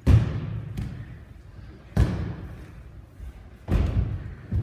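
Bodies landing on the dojo mat in aikido breakfalls: three heavy thuds with a slap, about two seconds apart, each ringing briefly in the hall.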